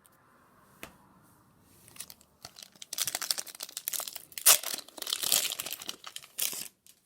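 Trading-card booster pack's foil wrapper crinkling and tearing open, a few seconds of dense crackling that starts about three seconds in after a single click, loudest near the middle.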